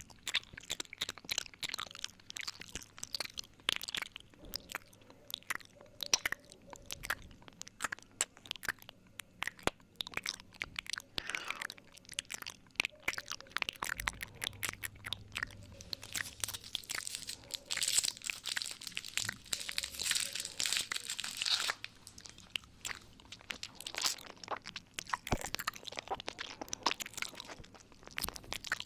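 ASMR 'ear eating' mouth sounds close on the microphone: a dense, irregular run of wet lip smacks, tongue clicks and licks. The clicks grow louder and hissier for a stretch past the middle.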